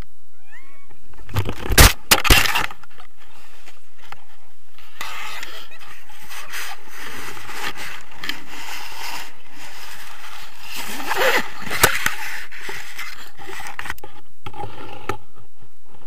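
Tandem paraglider touching down: a couple of heavy thumps and scrapes about two seconds in as the harness hits the ground. Then the nylon canopy rustles and flaps over the camera, with another knock later on.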